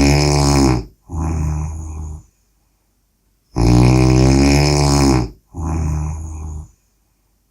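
A person snoring in a regular rhythm: each cycle is a long, loud snore followed by a shorter, softer one, then a pause of about a second, repeating roughly every four and a half seconds.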